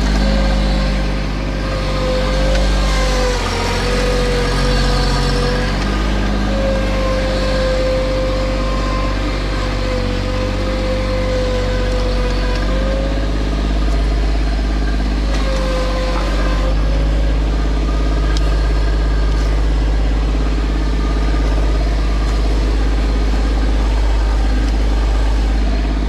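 Bobcat MT100 mini track loader's engine running steadily at working throttle as the machine moves, with a wavering whine over the drone that holds for much of the first half and comes back briefly about two-thirds of the way through.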